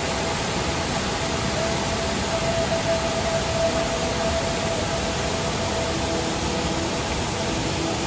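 Water from a small waterfall spilling over a wide rock ledge into a shallow pool, a loud, even rush.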